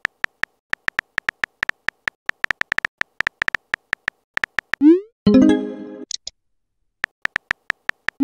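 Simulated phone-keyboard typing clicks, about four a second. A little over halfway through comes a rising swoosh as the message is sent, followed by a short pitched chime. The typing clicks start again near the end, ending on another rising swoosh.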